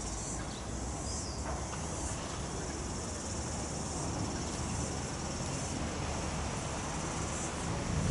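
Outdoor insect chorus, a steady high-pitched chirring that swells and eases every second or two, over a low steady rumble.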